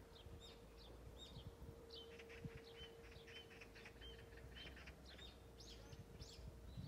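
Faint birds chirping in quick, short, high calls, scattered throughout, over a faint steady hum.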